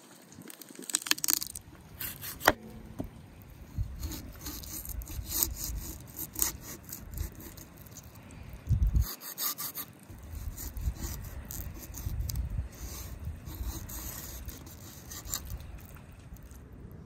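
Kitchen knife sawing and cutting through a raw goose's wing joint on a wooden cutting board. It makes a run of short rasping strokes, with a few sharp clicks of the blade.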